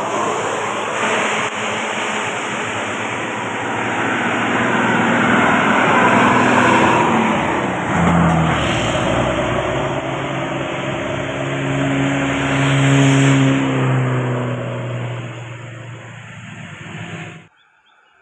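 A large bus passing close by with its engine running and pulling away, over steady road noise; the sound fades a little and then cuts off abruptly near the end.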